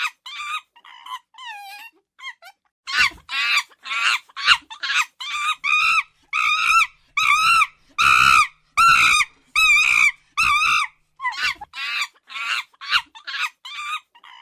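A monkey giving a rapid series of short, high-pitched calls, each rising and falling in pitch, about two a second. There is a brief pause about two seconds in, and the loudest calls come near the middle.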